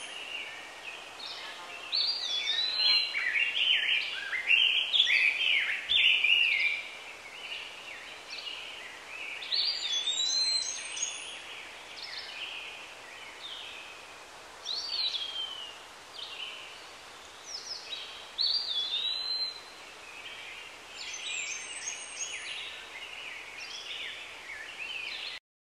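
Birdsong: several birds chirping and whistling in jumbled phrases that come and go, some notes sliding up and down, over a faint steady hiss.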